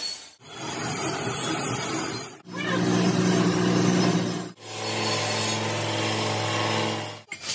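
Workshop machinery, mostly metal lathes, running with a steady motor hum and the hiss of cutting, in four short clips that break off abruptly about every two seconds.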